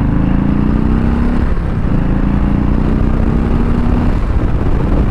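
Harley-Davidson Softail Slim's Milwaukee-Eight V-twin accelerating hard through the gears: the engine note climbs, drops at an upshift about a second and a half in, then climbs again until another shift near four seconds, with wind rushing over the helmet.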